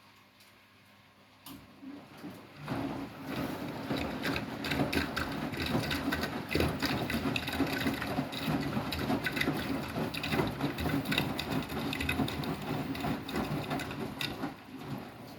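Beko WTK104121W washing machine running mid-cycle. It starts about two seconds in, builds quickly into a dense clicking and rattling over a low mechanical hum, and stops shortly before the end.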